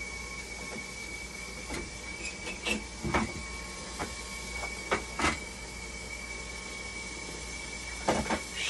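Scattered clicks and knocks of hands handling parts inside an opened dialysis machine, about a dozen irregular hits with a double knock near the end. Under them, a steady high-pitched tone and a low hum run on.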